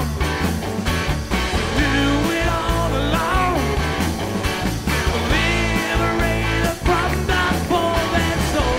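Background rock music with guitar, continuous and loud throughout.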